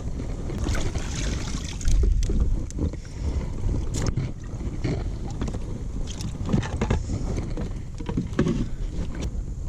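Wind buffeting the microphone over water sounds on a fishing kayak, with scattered light clicks and knocks from gear on the boat, the sharpest about four seconds in.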